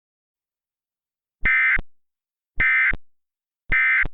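Emergency Alert System end-of-message signal: three short, harsh, buzzing bursts of SAME digital data about a second apart, the coded end-of-message (NNNN) that closes the warning broadcast.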